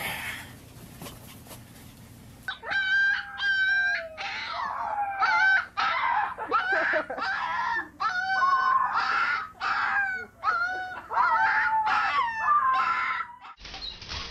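Husky yowling and 'talking' in a long string of wavering, high-pitched howls and whines, each call breaking off after a second or less.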